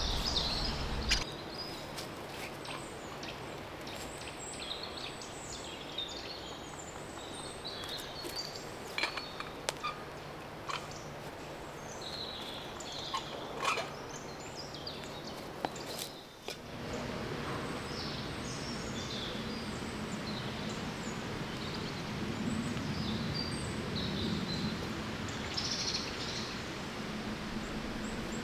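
Woodland ambience with several birds singing and chirping throughout over a steady background. A few sharp clicks and knocks in the first half.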